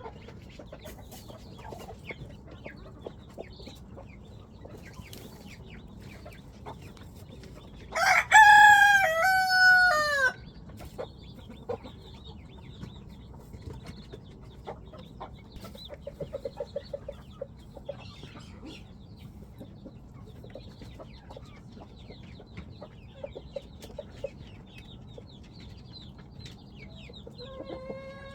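Chickens clucking, with a rooster crowing once about eight seconds in: a loud call of about two seconds whose pitch steps down at the end.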